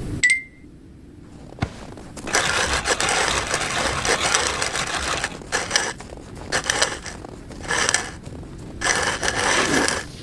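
Crunching and crackling in irregular bouts with short gaps, like something hard being chewed, starting about two seconds in after a brief high beep and a single click.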